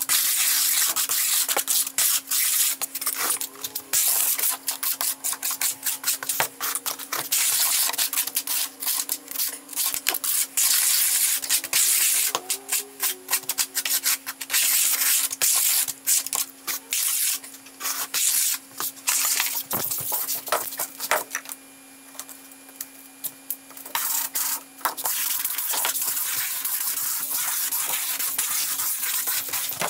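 Notched steel trowel scraping thinset across a plywood subfloor, then a float rubbing Schluter Ditra membrane down into it, sped up into a fast, continuous run of scrapes. A faint steady hum lies underneath and stops near the end.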